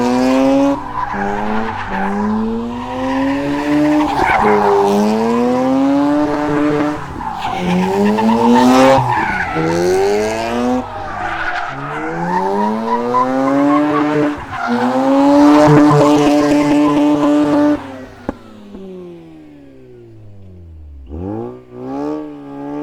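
Modified Mazda RX-8's rotary engine, run without a catalytic converter through an Invidia Q300 exhaust, accelerating hard. Its high-pitched note climbs and drops back about seven times, then falls away about 18 seconds in and sinks in pitch as it slows. Near the end it gives one short rev that rises and falls.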